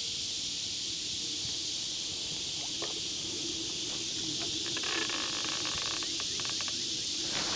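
Steady high-pitched chorus of insects buzzing without a break, with a few faint clicks of the fishing reel being handled about two-thirds of the way through.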